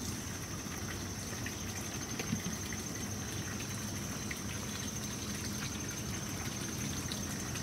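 A steady low mechanical hum with a thin, steady high tone above it, and a few faint light ticks scattered through.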